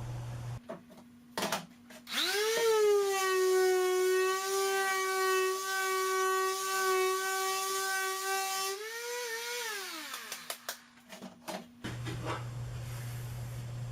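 Electric sander switched on about two seconds in, spinning up to a steady high whine, running for about six seconds on the wood panel edge, then switched off and winding down. A few light knocks of handling before and after.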